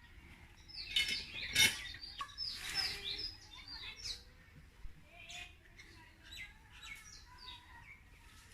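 Small birds chirping repeatedly, a burst of overlapping calls about a second in, then scattered chirps.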